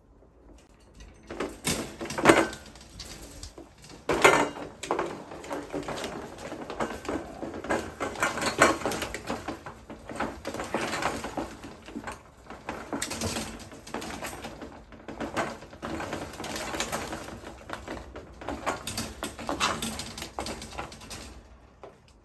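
Fennec foxes chattering and cooing over raw duck, squabbling over the food. Irregular clicks and knocks run throughout, with a few louder peaks.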